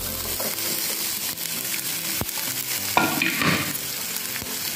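Diced capsicum and carrot sizzling as they land in hot oil in a frying pan with garlic and corn. There is a steady hiss, a sharp click about two seconds in, and a louder burst of sizzling about three seconds in.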